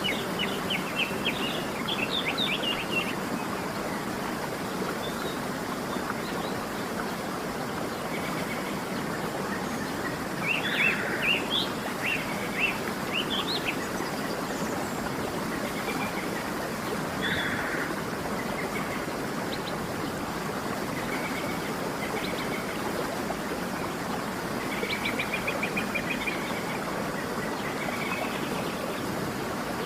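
Steady rushing of a waterfall, with wild birds chirping over it: quick runs of chirps near the start and around the middle, and a short trill near the end.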